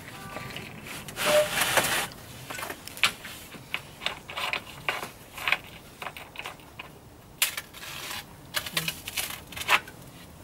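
Battipav Lampo Cut Easy Break large-format tile cutter being worked on a porcelain slab: a rough scraping stretch about a second in, then a string of scrapes, clicks and knocks.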